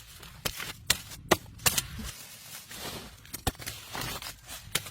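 Sharp chopping strikes of a hand-held blade or tool. Four come in quick succession about every half second, then two more later on, with rustling in between.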